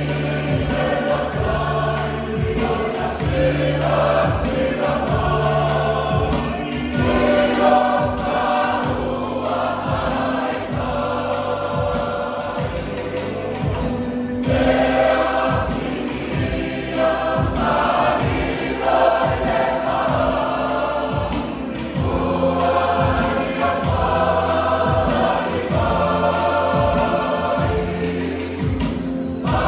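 Church choir singing a hymn in many voices, over held low bass notes and a steady beat.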